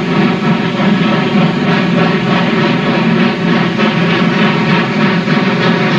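Norfolk & Western articulated steam locomotive working hard, its exhaust beats running together into a loud, steady roar.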